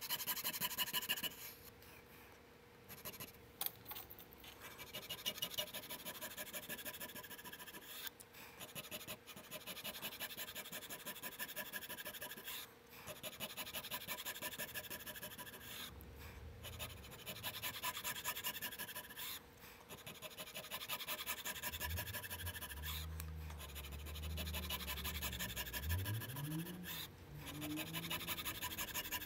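Checkering file rasping over a wooden 1911 grip panel in quick repeated back-and-forth strokes, with brief pauses every few seconds, as the checkering lines are deepened.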